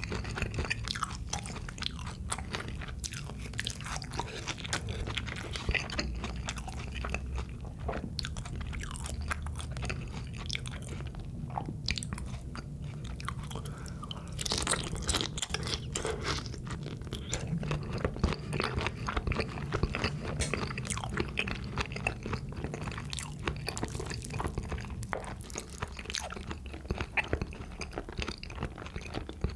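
Close-miked chewing and crunching of soy-sauce marinated raw shrimp (ganjang saeujang) and rice, a steady run of wet, irregular crackles and clicks. The crunching is densest about fifteen seconds in, as a whole shrimp is bitten.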